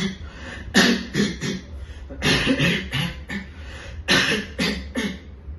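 A person giving a harsh barking cough, in three quick bouts of several coughs each.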